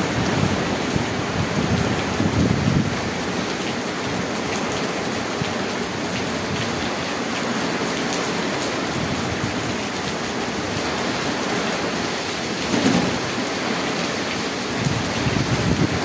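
Heavy rain falling steadily on grass and paving: a dense, even hiss. Low rumbles swell in near the start and again a few seconds before the end.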